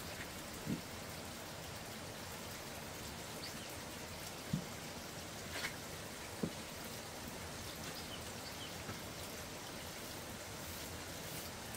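Steady, even hiss of outdoor background noise like light rain, with a few soft knocks scattered through it.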